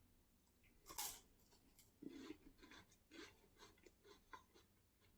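Faint crunching as a person chews a rolled wafer stick with a chocolate filling: a slightly louder crunch about a second in, then a run of small irregular crunches.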